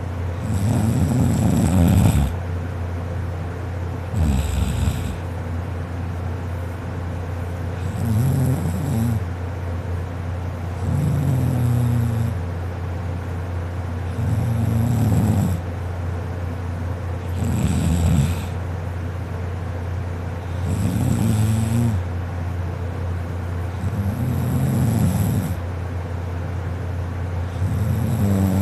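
A sleeping person snoring, kinda loud, with a snore about every three seconds in a steady rhythm. A steady low hum runs underneath.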